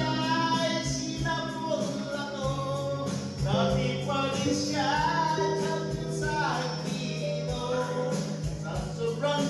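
Background music: a song with singing voices over a steady beat and bass line.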